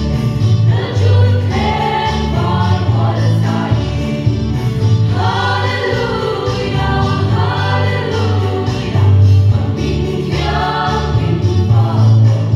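A women's vocal group singing a Christian song together through microphones, in phrases that swell and ease, over steady low bass notes that change in steps.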